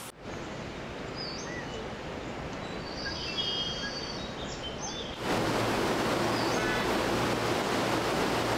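Outdoor ambience with a steady background hiss and a few faint high chirps. About five seconds in it cuts to the louder, steady rush of a mountain river flowing over rocks.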